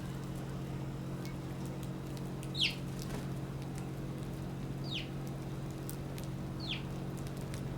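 Three short, high bird calls, each sliding sharply down in pitch, spaced about two seconds apart, over a steady low hum.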